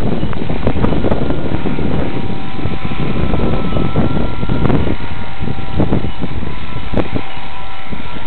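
Heavy wind buffeting the microphone, with the faint steady whine of a Walkera V400D02 RC helicopter's brushless motor and rotors in flight underneath it.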